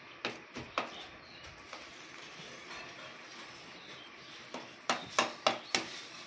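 A spoon knocking and scraping against a bowl while mashed potato is put into it. There are a few sharp knocks in the first second, then a quick run of four louder knocks near the end.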